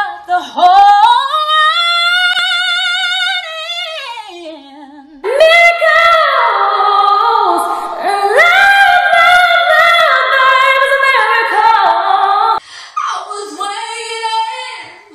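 Female pop singers singing high notes in quick succession: a long held note with wide vibrato that slides down about four seconds in, then fast runs up and down between high notes, then a quieter phrase near the end.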